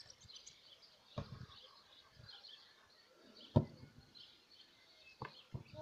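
A football being kicked: one sharp thud about three and a half seconds in, with softer thumps about a second in and near the end. Faint bird chirps in the background.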